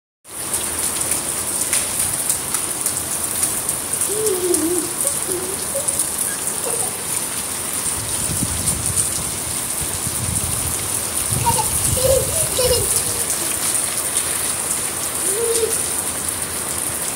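Steady rain falling on a flat concrete rooftop: an even, dense hiss of drops hitting the wet surface.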